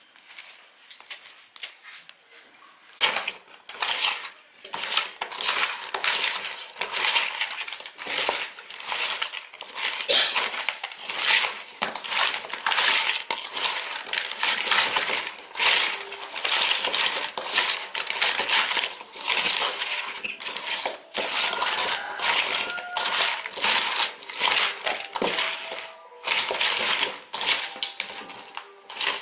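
Hands mixing chunks of raw pork with sauce in a metal bowl: wet squelching and pieces knocking against the metal, irregular and continuous, starting about three seconds in.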